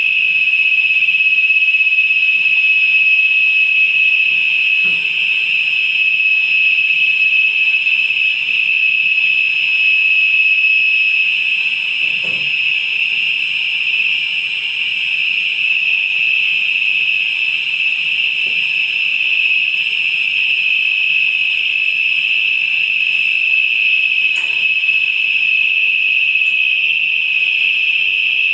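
Steady, high-pitched whistling hiss of oxygen escaping through the valves and fittings at the rear of a liquid oxygen tank trailer as it is unloaded. A few faint knocks come through underneath.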